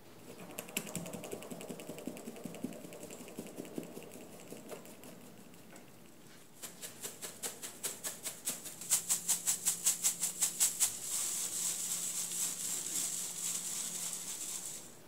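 Fine-mesh sieve being tapped and shaken over a glass bowl to sift flour and sweet pumpkin powder. The mesh gives quick rhythmic ticks, about four or five a second and louder in the middle. It then settles into a steady high hiss of powder falling through, which stops shortly before the end.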